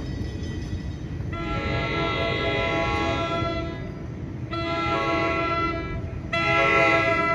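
Horn of an approaching NJ Transit Pascack Valley Line train, a chord of several steady tones, sounding the grade-crossing signal: a long blast starting about a second in, a second long blast, then a short one near the end. A low rumble of the approaching train lies underneath.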